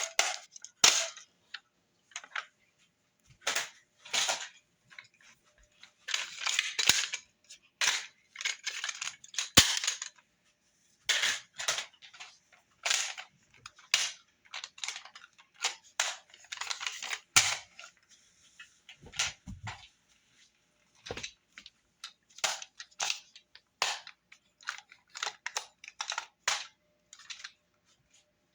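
Irregular sharp plastic clicks and clacks, with a few short rattling stretches, from toy guns being handled and reloaded.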